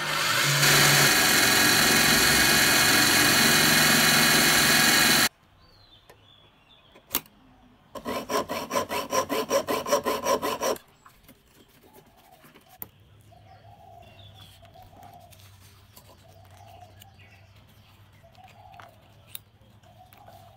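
Scheppach bench drill press switched on and running steadily for about five seconds, then cutting off suddenly. A few seconds later, rapid back-and-forth scraping, about four strokes a second for roughly three seconds, of a red pocket-knife blade worked against a small metal part clamped in a vise.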